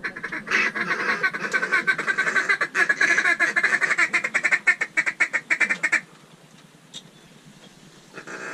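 Duck call blown in a long, fast run of short quacking notes, loud and close, that cuts off sharply about six seconds in.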